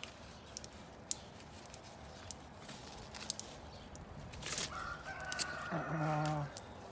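A rooster crowing once, about five seconds in: a short rise, then a long held note. A few sharp clicks come before it.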